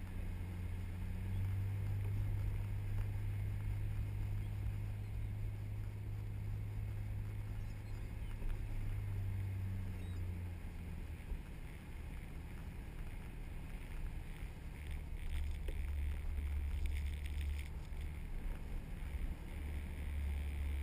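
A 4x4's engine drones steadily while driving on soft beach sand, with wind rushing over the outside-mounted microphone. The drone drops to a lower pitch about halfway through and holds there.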